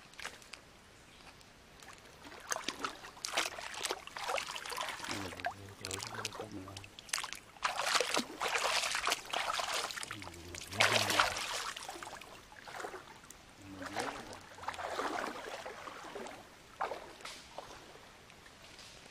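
Shallow stream water splashing and sloshing in repeated bursts as hands reach in and grab a freshwater crab.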